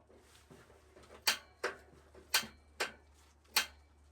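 Buddy propane heater's piezo igniter clicking as the pilot is being lit: five sharp clicks, about half a second to a second apart.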